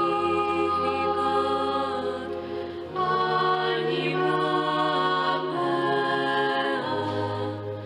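Slow choral-style background music: long held chords over a steady bass note, shifting to a new chord every second or two.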